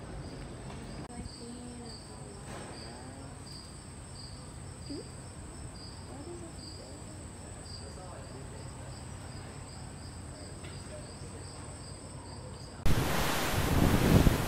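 Crickets chirping in a steady, even rhythm, about one and a half chirps a second, over a low hum. Near the end it cuts abruptly to loud wind buffeting the microphone over open sea.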